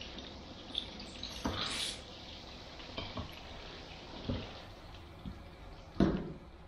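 Water from a salon shampoo-basin spray head running over hair into the basin, cutting off about two seconds in. Then soft handling sounds with a couple of dull thumps, the loudest near the end.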